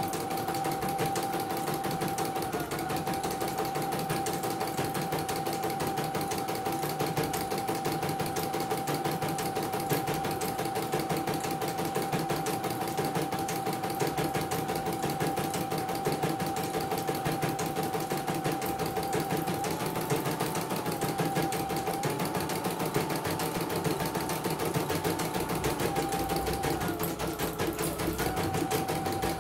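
CNY computerized embroidery machine stitching steadily: a rapid needle clatter over a steady motor whine, which steps up slightly in pitch a few times in the second half as the machine changes speed.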